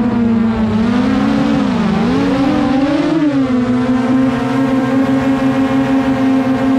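DJI Mavic quadcopter drone's propellers humming at one pitch with many overtones. The pitch dips and rises between about one and three and a half seconds in as the motors change speed, then holds steady.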